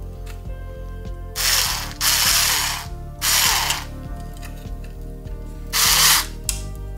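Cordless electric screwdriver turning a screw in the 3D printer's print-head carriage, in four short bursts of about half a second each.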